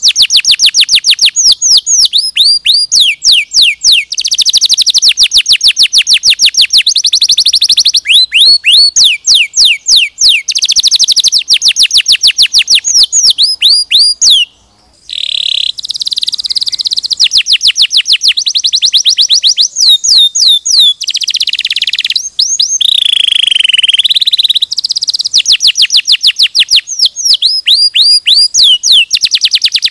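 Domestic canary singing a long, loud song: runs of fast repeated falling notes alternating with sustained buzzing rolls, with a brief break about halfway.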